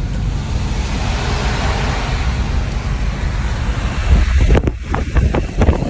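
Steady rushing wind noise, turning into heavy, irregular buffeting on the microphone from about four seconds in.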